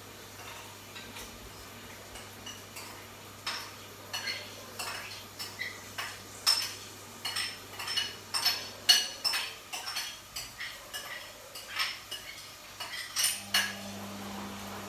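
Kitchen clatter: metal utensils clinking and knocking against pots and dishes. A string of sharp, ringing clinks starts a few seconds in and comes thick and fast.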